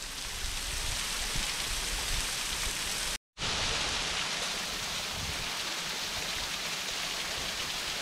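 Large waterfall rushing: a steady, even roar of falling water that cuts out completely for a moment about three seconds in.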